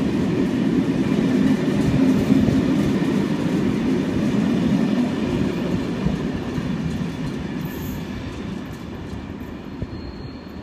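Locomotive-hauled SNCF Corail passenger coaches rolling past on the rails with a steady rumble; about halfway through the rumble starts to fade as the last coach draws away.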